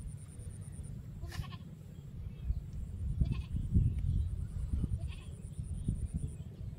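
A farm animal calling a few times, with short pitched calls, over a low wind rumble on the microphone.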